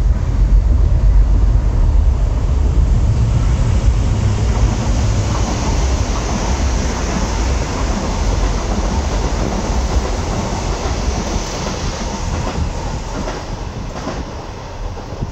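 PKP Intercity electric train passing through at speed: heavy rumble and rail noise, loudest in the first few seconds and slowly fading as the train runs on.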